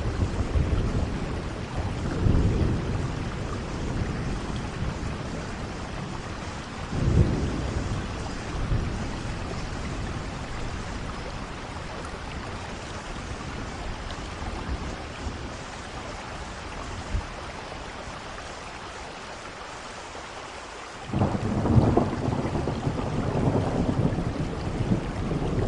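Steady rain falling, with thunder rumbling low: swells near the start and about seven seconds in, then a louder rumble that sets in suddenly near the end.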